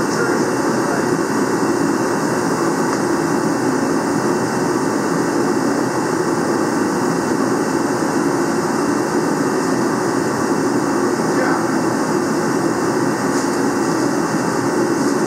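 Steady, unchanging roar of running machinery.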